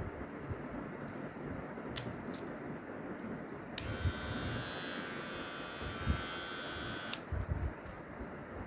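Dingling RF-630 electric hair trimmer switched on, running with a steady high buzz for about three seconds, then switched off. A click comes shortly before it starts.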